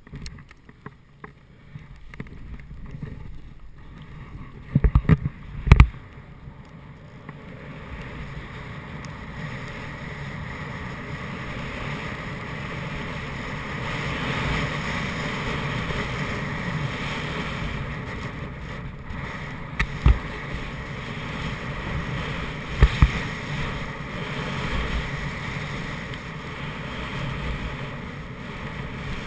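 Snowboard sliding through deep powder: a steady rushing hiss of snow under the board, mixed with wind on the camera microphone, building up about seven seconds in. Before that there are scattered clicks and two loud knocks, and a few more sharp knocks come later in the run.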